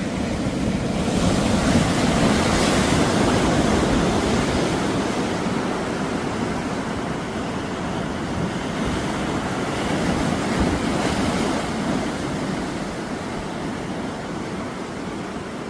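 Sea waves breaking and washing up the shore, swelling louder about a second in and again around ten seconds, with wind buffeting the microphone.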